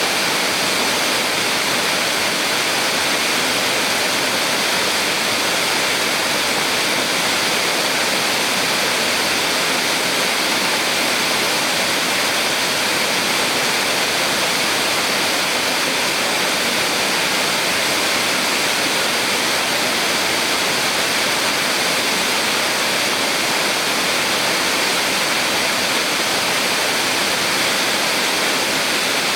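Small waterfall on a mountain stream: a steady rush of falling and running water, unchanging throughout.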